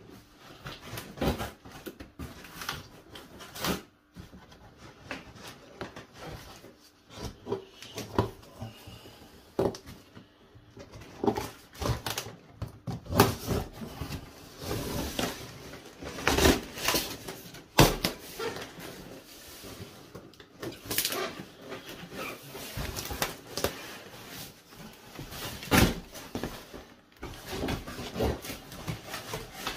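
Cardboard box being cut and torn open by hand: irregular tearing, scraping and knocking of corrugated cardboard and packing tape, with some louder sharp rips and bumps.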